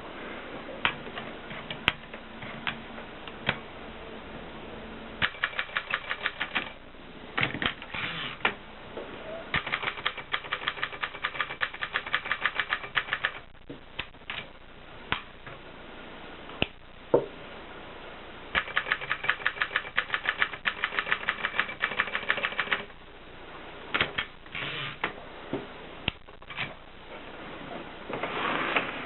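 Adler 7 typewriter being typed on: fast runs of key strikes, about ten a second, broken by single strokes and short pauses.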